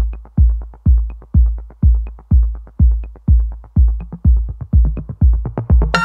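Electronic background music with a steady kick drum, about two beats a second, and a light tick about once a second. Near the end, a fuller synth part comes in.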